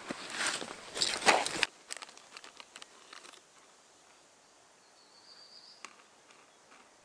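Rustling and crinkling as a backpack is rummaged through, loud for about a second and a half and cutting off abruptly. After that, quiet outdoor ambience with a few faint clicks and one short high chirp.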